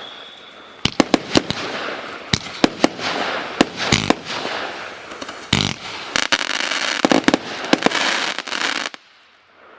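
Multi-shot firework battery (cake) firing: a dense run of sharp bangs over continuous crackling, with a fading whistle in the first second. The firing stops abruptly about nine seconds in.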